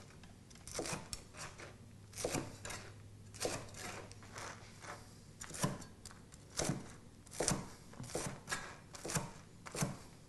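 Knife cutting crunchy toasted bread on a wooden cutting board: irregular crunching knocks of the blade through the crust onto the board, one or two a second.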